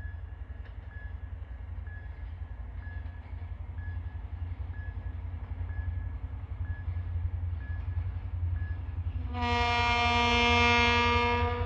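M62M diesel locomotive hauling a container train approaches with a low rumble that slowly grows louder, then sounds its horn in one long blast of about two seconds near the end.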